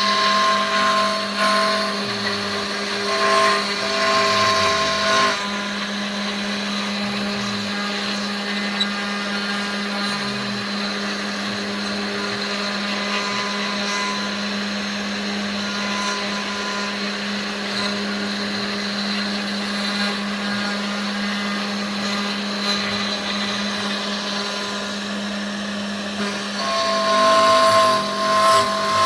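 Genmitsu 3020 PRO MAX CNC router spindle running with a steady whine while milling. Higher-pitched tones come and go near the start and again near the end.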